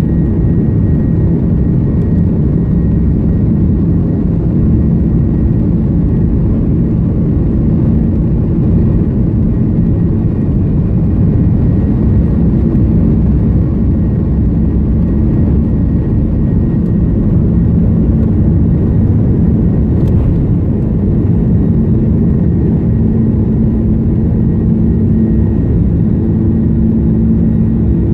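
Steady cabin drone of an Airbus A330-200 with GE CF6-80E1 engines: a loud low rumble with a few steady humming tones, unchanging throughout.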